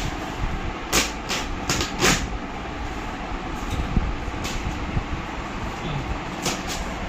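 Cardboard shipping box being handled and opened: a quick run of four short rustling knocks about a second in, then two more single ones, over a steady background rumble.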